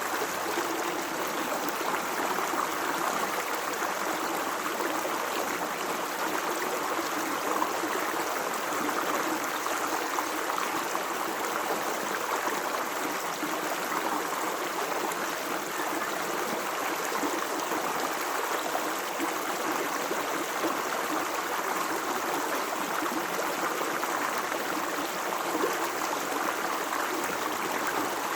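Steady rush and gurgle of a natural stream of running water, unbroken throughout.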